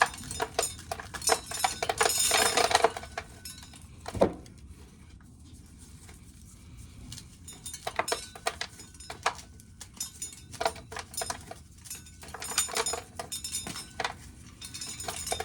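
Dry corn kernels clicking and rattling as ears are shelled, in bursts of dense clinking with quieter gaps between.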